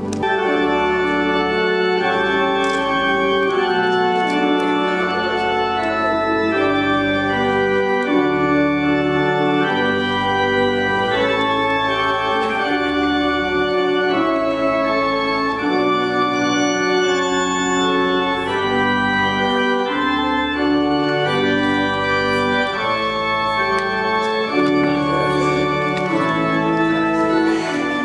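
Organ playing a wedding processional: sustained chords changing about every second over long-held low bass notes.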